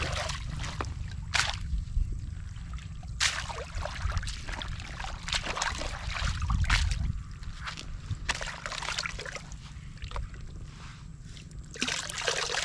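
Shallow lake water sloshing and splashing in irregular bursts as hands and a woven bamboo basket are worked through it, over a steady low rumble.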